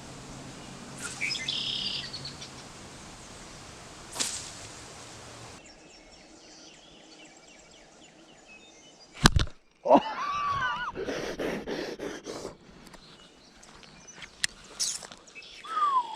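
Birds calling outdoors: short chirps and a couple of gliding calls, one near the end falling in pitch. There is a single sharp knock about nine seconds in.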